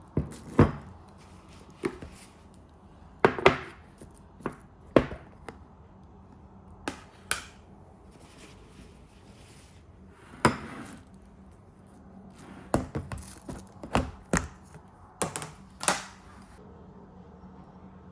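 Kitchen knife knocking on a wooden cutting board: about twenty sharp, separate chops at an uneven pace, in loose clusters, with a pause of a few seconds midway.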